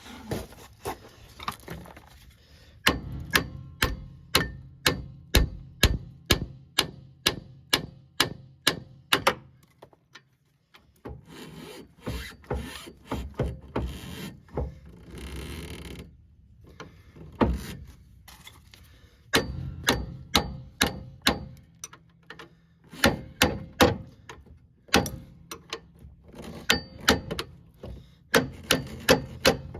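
Hand ratchet wrench clicking in quick, repeated strokes, in runs of several seconds with short pauses between.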